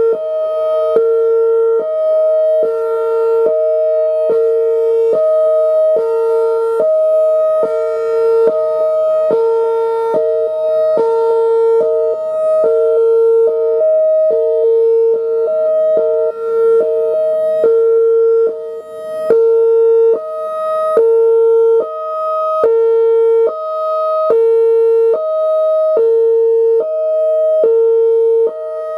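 Whelen Vortex R4 electronic outdoor warning siren sounding its Hi-Lo signal: two tones, a low and a high, alternating about once a second. It grows louder and softer as the rotating speaker head turns.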